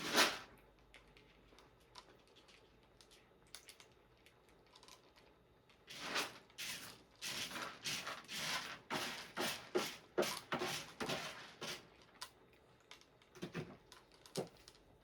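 Cat litter being scraped and stirred in a quick series of short, scratchy strokes, with one sharp scrape at the very start and a few more strokes near the end.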